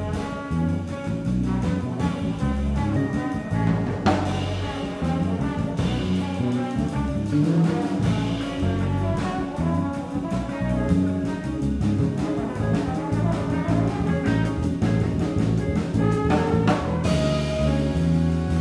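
Live jazz septet playing: trombone over two electric guitars, electric bass and drum kit, with trumpet and tenor saxophone joining the trombone in a full horn section about a second before the end.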